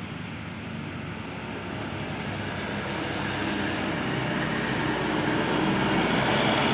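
A motor vehicle approaching, its engine and road noise growing steadily louder, with a low engine hum coming through near the end.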